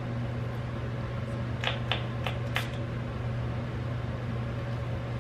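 Four short spritzes from a pump body-spray bottle in quick succession, about a second and a half in, over a steady low hum in the room.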